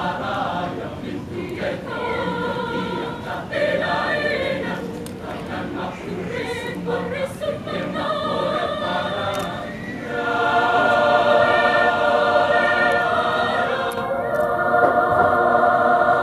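Choir singing in parts, with moving lines at first and then two long held chords in the last six seconds, separated by a brief break.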